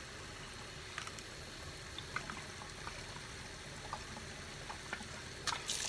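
Water trickling into a plastic water-bottle minnow trap, with scattered small drips and splashes. Near the end a stronger rush of running water starts.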